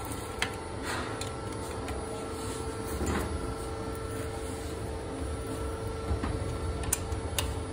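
A steady mechanical hum with one constant tone over a low rumble, broken by a few light clicks and knocks.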